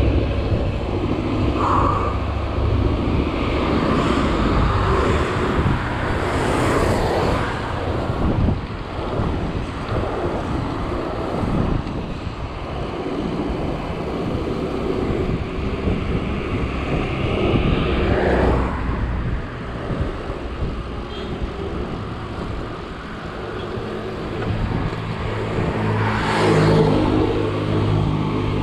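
Wind rumbling on the microphone of a camera mounted on a moving bicycle, over steady road noise. Motor vehicles swell past several times, the last near the end with an engine's hum.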